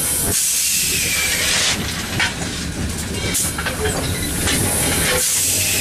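Steady running noise in the cab of steam locomotive No. 630, a 2-8-0, with steam hissing. The hiss swells loudly twice, about half a second in and again near the end.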